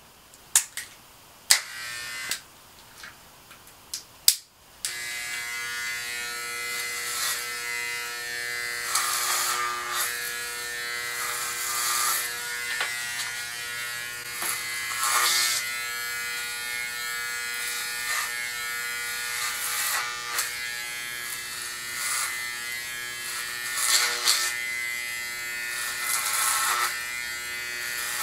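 Corded electric hair clipper switched on about five seconds in and running with a steady buzz, louder at moments as the blades cut through hair. A few sharp clicks come before it starts.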